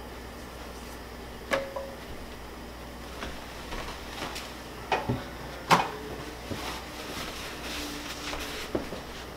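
Several sharp knocks and clatters of things being handled in a kitchen, the loudest about six seconds in.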